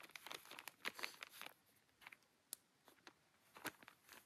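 Faint, scattered crinkling and rustling from hands handling something. There is a close run of crackles in the first second and a half, then a few isolated ones.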